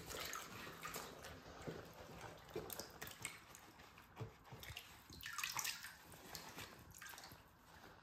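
Rubber-gloved hands washing a vacuum cleaner part in a plastic basin of soapy water: irregular splashing and sloshing with drips, busiest about five to six seconds in.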